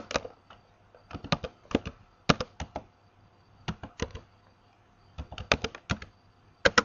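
Computer keyboard being typed on: short, irregular bursts of key clicks with pauses of about a second between them.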